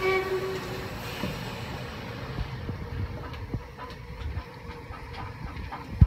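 LMS Hughes-Fowler 'Crab' 2-6-0 steam locomotive 13065: the tail of a whistle blast in the first half-second, then a low rumble with irregular clanks and clicks from the wheels and running gear as it moves slowly past. A single sharp bang near the end is the loudest sound.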